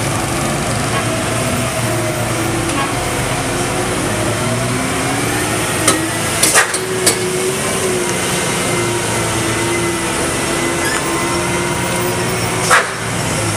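Diesel engine of a heavily loaded Mitsubishi Fuso truck running steadily as the truck pulls slowly through a hairpin bend, its pitch drifting gently up and down. Three or four sharp knocks come about six to seven seconds in, and one more near the end.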